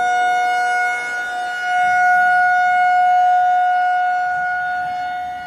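Outdoor tornado warning siren sounding one loud, steady pitch. Its rotating head sweeps it louder about two seconds in, then it fades as it turns away.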